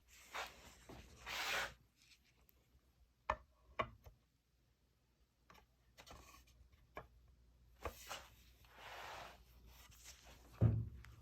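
Scattered brushing and rubbing sounds with a few sharp clicks, and a louder low thump near the end, with no machine running.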